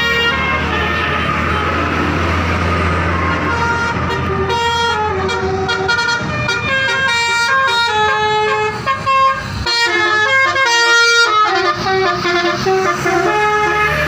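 Bus 'telolet' Basuri musical air horn playing a quick melody of stepping notes, over the low rumble of the bus's engine. The engine rumble is strongest for the first few seconds, and the horn tune comes in clearly about four seconds in.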